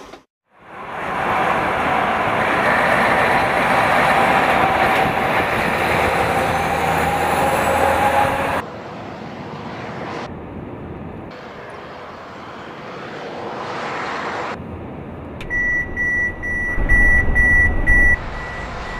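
Mercedes-Benz Actros truck driving at speed, a loud steady running noise that drops back after a cut about nine seconds in. From about fifteen seconds in, a repeated high-pitched warning beep sounds over a low rumble: the collision warning of the truck's advanced emergency braking system as it closes on a stopped car.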